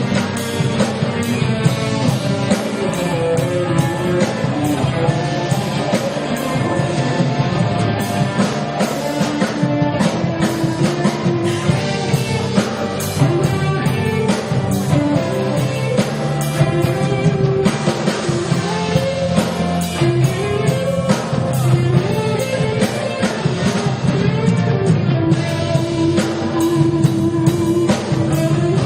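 A live rock band playing a song: electric guitars and a drum kit, with a bending melody line carried over a steady bass.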